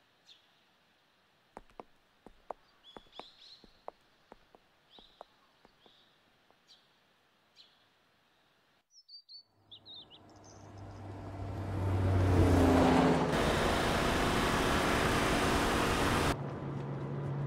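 Birds chirping over faint ticks and taps in a quiet outdoor ambience. About ten seconds in, a car's engine and tyre noise swell up loud and steady as the car drives along the road, then drop suddenly near the end to a quieter, lower steady hum.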